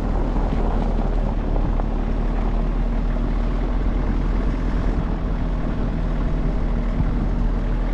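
Car interior noise: engine and road rumble from inside the cabin, a steady low rumble with a faint steady hum above it.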